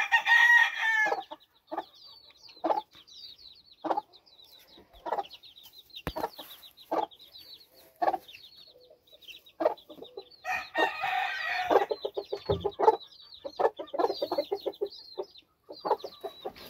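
Mother game hen clucking in short clucks about once a second, while her young chicks peep constantly in high chirps. A longer, louder call sounds at the start and again about eleven seconds in.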